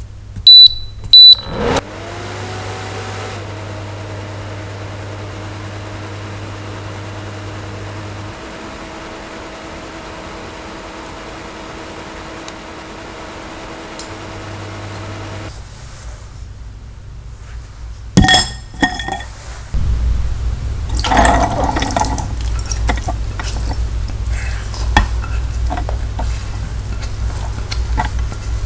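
Two short electronic beeps from a kitchen appliance, then a motor hum that rises in pitch as it starts and runs steadily for about twelve seconds before stopping. Near the end come a sharp clink and a busy run of small clinks and scraping, like utensils on a pot or jar.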